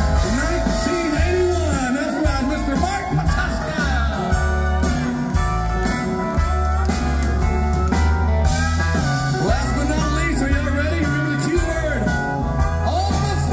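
Live country band playing an instrumental break, with a pedal steel guitar soloing and sliding between notes over bass and drums.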